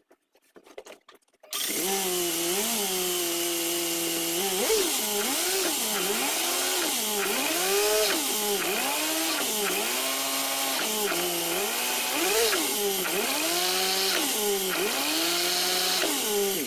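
VAZ-2104 (Lada) four-cylinder engine revved hard in gear over and over, its pitch rising and falling about once a second; it starts suddenly about a second and a half in. This is the accelerate-and-brake method for knocking loose a rear brake drum that is stuck on the hub.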